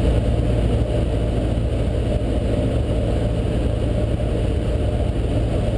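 Steady drone of a Cessna 152's piston engine and propeller, heard inside the small cockpit in flight.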